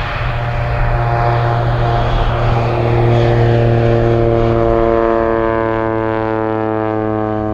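Air Tractor AT-402 crop duster's Pratt & Whitney PT6A turboprop passing low overhead. It is a steady propeller drone with a deep hum under several held tones, swelling to its loudest about three seconds in.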